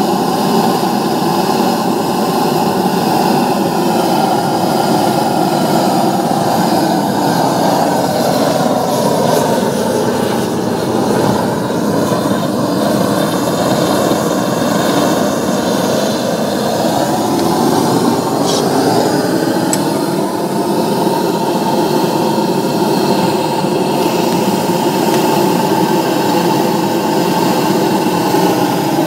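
Sheen X300 flamegun's pressure-fed burner running on red diesel, a loud, steady roar of the flame jet whose tone sags briefly twice.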